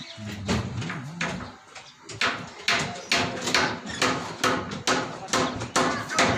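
A steady series of sharp strikes, about two to three a second, beginning about two seconds in, with a voice or animal call before them.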